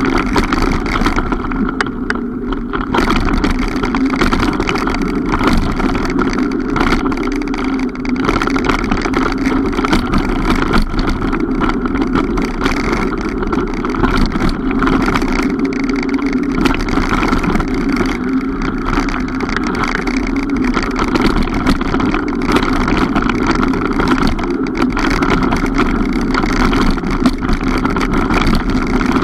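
Mountain bike riding along a trail: steady rushing wind noise on the on-board camera's microphone along with tyre noise, and frequent small clicks and knocks from the bike.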